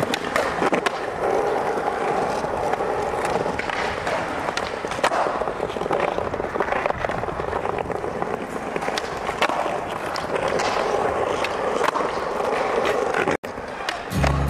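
Skateboard wheels rolling over concrete and smooth tiles, with sharp clacks of the board now and then from pops and landings. A brief cut-out near the end, then music with deep bass notes comes in.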